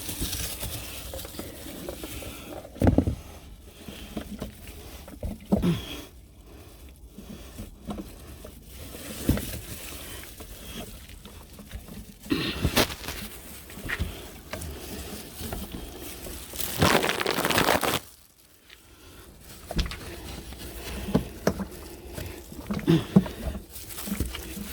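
Irregular knocks, scrapes and rustles of a diesel can and filler hose being handled in a cramped space. About two-thirds of the way through, a louder rushing noise lasts a second or two and cuts off suddenly.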